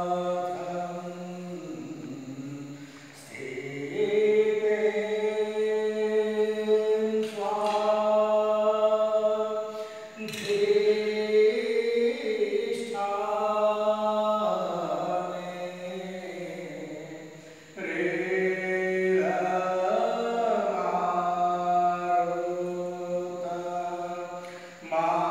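Hindu devotional aarti being chanted: long held sung notes in phrases of three to four seconds each, with short breaks for breath between them.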